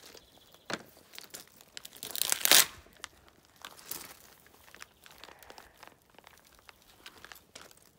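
Stacked foil pouch cells of a VW ID.3 battery module (LG Chem E78) being pried and peeled apart by gloved hands: crinkling and tearing of the thin aluminium-laminate pouches, with scattered crackles and the loudest tearing rush about two seconds in, another smaller one around four seconds.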